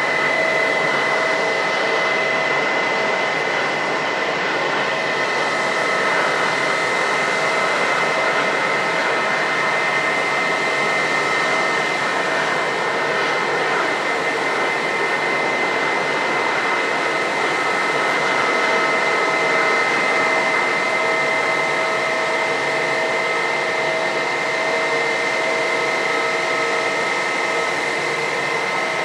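Airbus A320's jet engines running at idle as the airliner taxis: a steady rushing whine carrying several steady tones, the strongest of them high-pitched.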